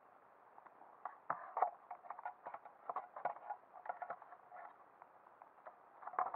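Irregular sharp clicks and ticks underwater, heard muffled through an underwater camera, starting about a second in and coming thickest in clusters early and near the end.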